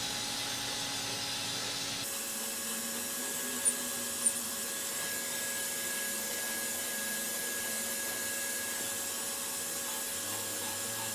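Steady hum and hiss of running shop machinery, with two faint clicks about four seconds in.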